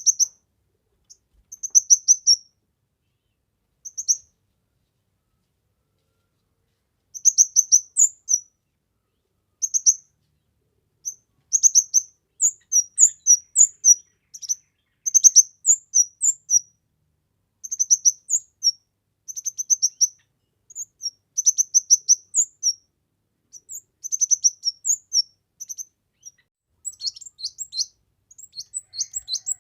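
A kemade bird singing in short, high-pitched phrases of quick chirping notes. The song starts sparsely, pauses for a few seconds, then comes in busy phrases with hardly a break, turning to faster rattling notes near the end.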